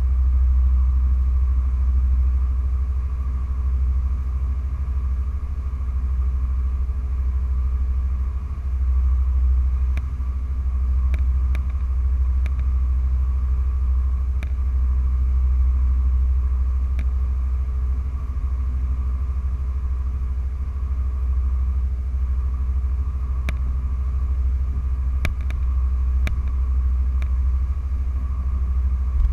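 Cabin cruiser's engine running steadily at low harbour speed, a continuous low rumble, with a few faint ticks scattered through.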